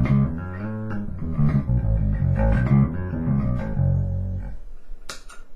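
A 5-string Warmoth Jazz bass played through an 8 Bit Duck bit-crusher pedal into a Music Man HD-130 amp, picking a run of low notes with the low end still full. There is a sharp click about five seconds in.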